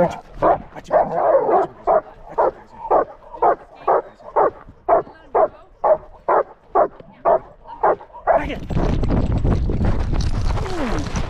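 Dog barking over and over in a steady rhythm, about two barks a second, for roughly eight seconds. Near the end the barking gives way to a loud, rough rushing noise.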